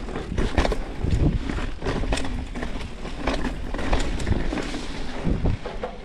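Mountain bike riding over a rough dirt trail: tyres rumbling over the ground with frequent knocks and rattles from the bike over bumps, and wind buffeting the microphone.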